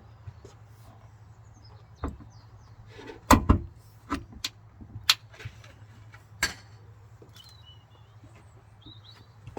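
Sharp knocks and clicks, about half a dozen, the loudest a quick double knock about three and a half seconds in, as a power tailgate strut is pushed and clicked onto its mounts on a Mitsubishi Shogun Sport.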